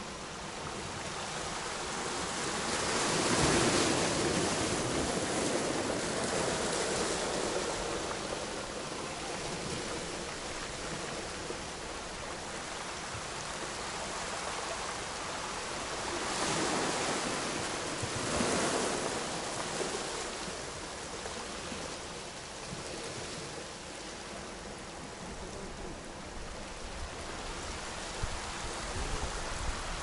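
Small sea waves breaking and washing over a pebble beach: a steady hiss of surf that swells up about three or four seconds in, and twice more near the middle.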